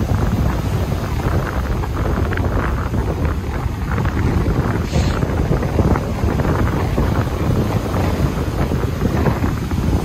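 Strong wind buffeting the microphone in loud, gusty rumbles, over the wash of rough surf breaking on a sandy beach.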